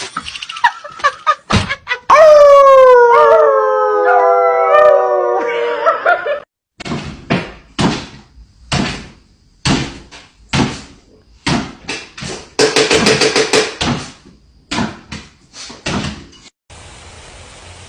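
Dog howling: one long, wavering call that slowly falls in pitch, lasting about four seconds. It is followed by a run of short, sharp sounds, roughly one or two a second, for about ten seconds.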